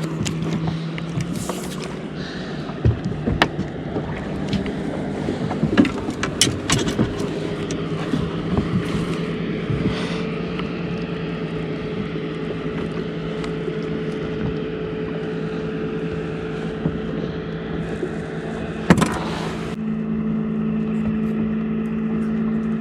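Boat engine running steadily, its hum shifting pitch a couple of times. Scattered clicks and knocks of handling come through the first half, with one sharp knock near the end.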